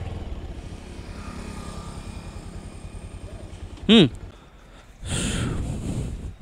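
Motorcycle engine running with a steady low rumble that fades out about four seconds in. As it fades there is a short, loud sound falling in pitch, followed by about a second of rushing noise.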